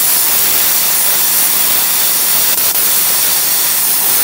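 Plasma cutter with a built-in air compressor cutting through 16 mm steel plate: a loud, steady hiss of the plasma arc and air jet.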